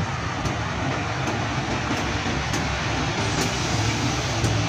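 Adi Soemarmo airport train (KAI multiple unit) running past on the track: a steady rumble and hiss with a low hum, broken by a sharp click about once a second.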